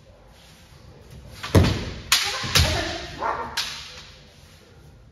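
Bamboo shinai hitting kendo armour: four sharp cracks within about two seconds, starting about a second and a half in, two of them with a low thud beneath.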